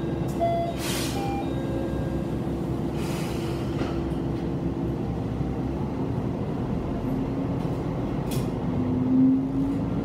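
Diesel railcar heard from inside, its engine humming steadily while stopped at a station, then rising in pitch over the last few seconds as the car starts to pull away. Two short hisses come in the first few seconds.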